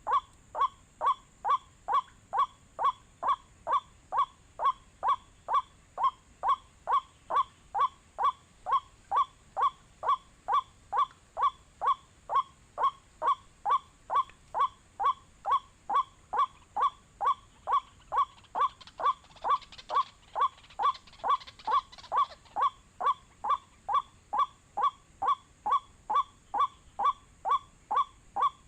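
White-breasted waterhen call played from an MP3 lure recording: one short 'kwak' note repeated with very even timing about twice a second. A faint steady high whine runs underneath.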